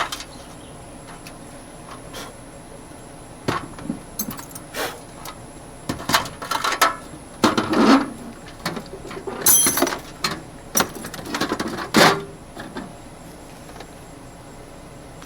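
Metal hand tools and sockets clinking and clattering as they are picked up and set down. A few separate knocks at first, then a busy run of rattles and clanks, stopping a few seconds before the end.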